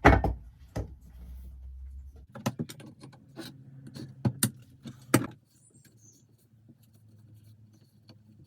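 Workshop handling noise: a loud knock at the start and another just under a second later, then a run of small clicks and clinks, as of metal parts and tools being picked up and set down, that stops about five seconds in.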